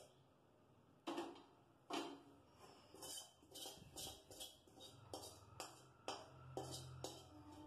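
Faint, irregular light taps and clicks, about one or two a second, over a low hum that grows louder in the second half.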